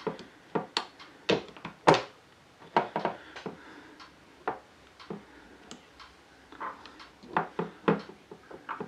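Irregular clicks, taps and light knocks of small metal parts being handled and fitted into a Crosman 357 pellet pistol's frame, with a few sharper knocks against the wooden tabletop about one to two seconds in and again near the end.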